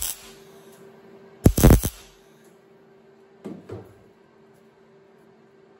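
Welder putting short tack welds on a sheet-steel patch panel: one loud crackling burst of about half a second comes about a second and a half in, and two fainter short sounds follow later, over a steady low hum.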